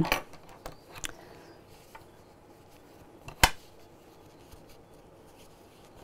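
Quiet handling of a fabric bag flap and a metal twist-lock bag clasp, with a few faint ticks and one sharp click about three and a half seconds in.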